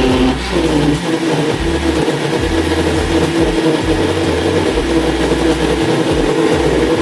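Electric blender switching on and running, blending frozen raspberries and cherries with water into juice. It starts suddenly, its pitch settles within the first second, then it runs steadily and loudly.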